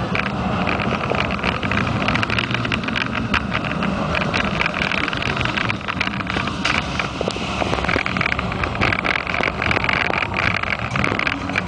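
Roller coaster train running along its steel track, heard from on board: a constant rumble with dense clattering and rattling from the wheels and cars, plus wind buffeting the microphone.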